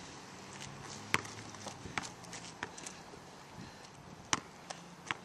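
Basketball bouncing and striking on an outdoor asphalt court: a handful of sharp, separate slaps spaced about a second apart, the loudest about four seconds in.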